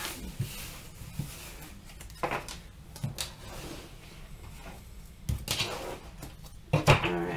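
Handling noise from a stack of round oracle cards being gathered and slid together on a tabletop, then packed into a small round lidded container: scattered taps, scrapes and shuffles, the loudest cluster near the end.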